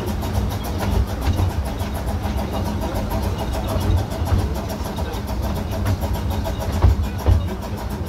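Small miniature-railway train running along the track, heard from an open carriage behind the locomotive: a steady low running noise from the wheels and carriage, with a fast, regular clicking.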